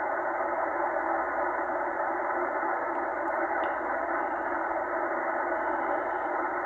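Tecsun H-501X shortwave receiver in upper sideband mode, hissing with steady band noise and no station audible as it is tuned up in 1 kHz steps around 3.2 MHz. The hiss is narrow and muffled, with the highs and lows cut off by the receiver's sideband filter.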